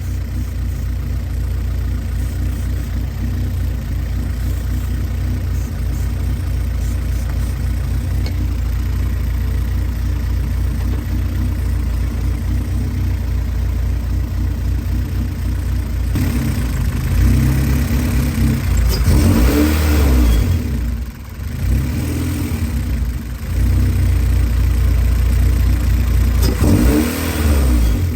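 Honda Civic's B-series VTEC engine idling steadily, then revved twice in the second half, the pitch rising and falling back each time.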